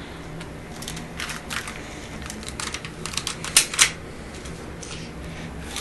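Irregular light clicks and rattles of plastic airsoft guns being handled, with two louder clicks about three and a half seconds in.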